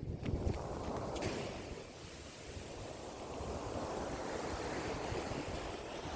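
Sea waves washing ashore, a hiss that eases off about two seconds in and then swells again, with wind rumbling on the microphone.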